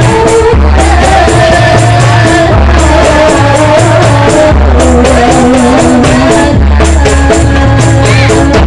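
A marawis ensemble plays loudly: women sing a sholawat melody into microphones over the quick beat of marawis hand drums and the deep, repeating strokes of a large hajir barrel drum.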